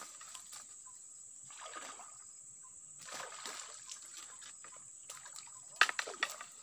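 A hooked wild tilapia thrashing at the surface, splashing the water in a few bursts, with the sharpest, loudest splashes near the end.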